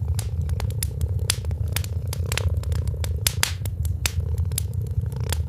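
Irregular crackling: sharp clicks, several a second, over a steady low rumble.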